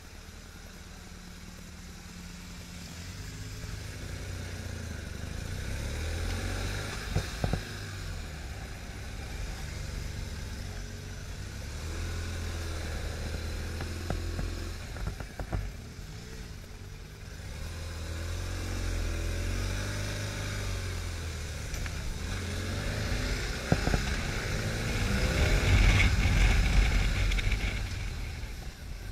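Police motorcycle engine repeatedly revving up and dropping back as the rider accelerates and brakes between poles on a timed slalom course, loudest near the end, with a few short clicks along the way.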